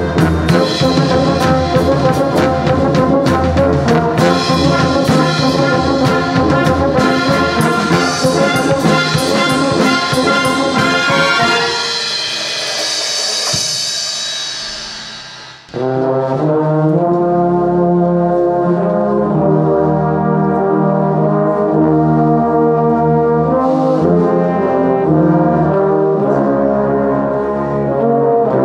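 Church brass band with flutes and clarinets playing a hymn arrangement: a busy passage with percussion strikes builds into a held, swelling chord, breaks off briefly just past halfway, then goes on with slower, sustained brass chords.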